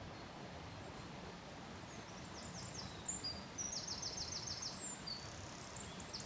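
A small songbird singing a run of high, quick notes, with a fast trill of about seven notes in the middle, over steady outdoor background noise.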